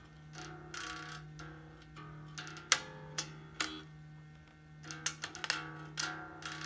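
Strings of a Harley Benton B550 fretless five-string bass plucked unamplified, a scatter of thin, sharp notes, over a steady low hum from the amplifier rig. No signal reaches the amp because the bass's active electronics have no battery in.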